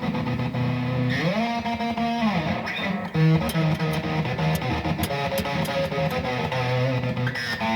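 Electric guitar played through an amplifier: held notes, one bent up and let back down, then a run of notes with sharp clicks on them from about three seconds in.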